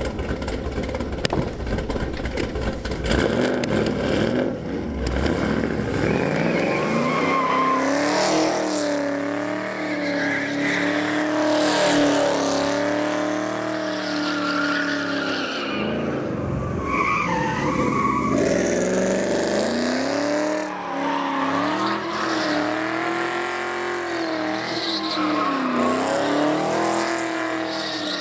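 Cammed Camaro's LS V8 revving hard, its pitch climbing and dropping again and again, while the rear tires squeal and skid through burnout donuts.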